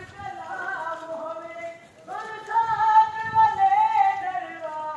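A voice chanting a noha, a Shia lament, in long wavering sung phrases; from about two seconds in it holds one long, drawn-out note.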